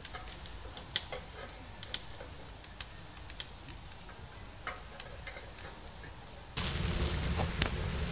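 Faint scattered clicks, then, about six and a half seconds in, a wood fire in a small sheet-metal stove used as a forge starts to be heard as a steady noise.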